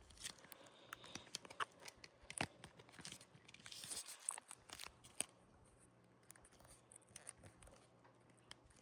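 Faint handling noises from mounting a fire alarm device: scattered clicks, scrapes and rustles of plastic and hardware, busiest in the first five seconds and then thinning out.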